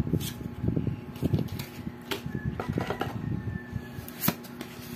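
Exploding Kittens playing cards handled and leafed through close to the microphone: soft, irregular rustling and sliding of card against card, with a few sharp card clicks, over a faint steady hum.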